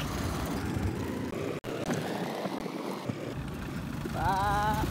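Vehicle driving on a gravel road: a steady rumble of engine and tyres with some hiss. It grows louder about four seconds in as a truck comes close, and a short wavering tone sounds near the end.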